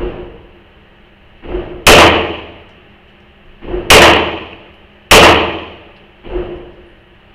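Gunshots in an indoor range: three very loud shots, the last two about a second apart, each ringing out in the room's echo, with four fainter shots in between.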